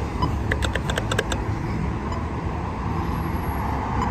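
Steady road traffic rumble from passing cars. About half a second in comes a quick run of about eight sharp ticks lasting under a second.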